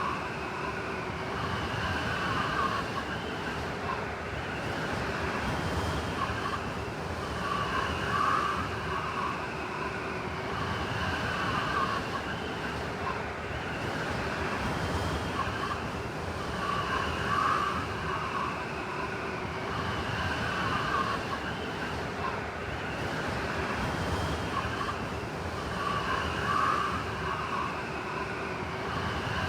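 Blizzard wind howling around a wooden cabin: a steady rush with wavering whistles and gusts that swell and fade about every nine seconds.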